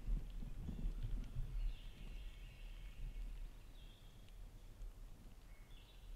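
Small songbirds singing in open woodland: a warbling phrase about two seconds in, then two shorter phrases. Under them runs a low rumble, heaviest in the first two seconds.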